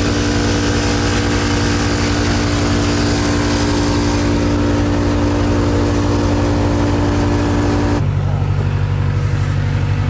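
Case backhoe engine running steadily close by. About eight seconds in, the sound changes abruptly to a deeper, lower hum.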